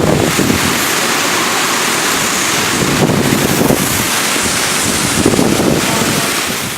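Strong hurricane wind blowing steadily, with gusts buffeting the microphone in low rumbles; the noise fades away near the end.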